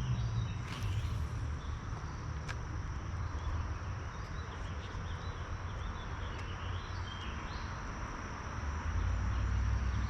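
Steady outdoor ambience: a constant high insect drone over a low rumble, with a few faint bird chirps midway.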